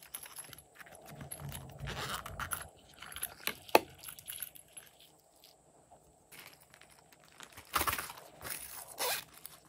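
Small plastic glitter shapes rattling and clicking as they are shaken out of a plastic bottle into a hand, with one sharp click a little under four seconds in. Near the end come a few louder rubbing and scraping sounds as silicone pop-it bags are handled.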